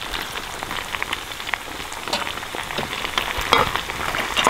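Hot mutton fat sizzling and crackling around the heated stones in a khorkhog pot, with scattered light clicks of metal tongs knocking against the stones and the pot.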